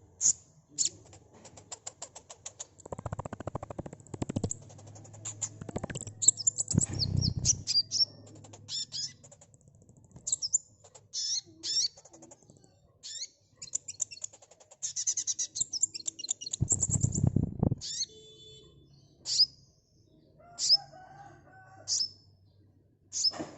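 Sunbird singing: rapid, high-pitched chattering trills and sharp chirps, thinning to separate short calls in the second half. Low fluttering thumps come a few times, loudest about seven seconds in and again past the middle.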